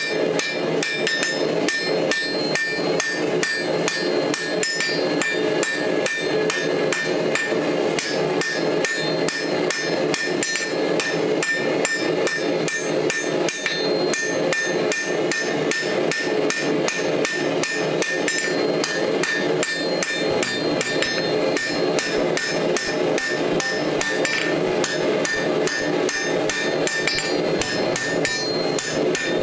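Hand hammer forging hot steel on an anvil: rapid, steady blows with the anvil ringing through them.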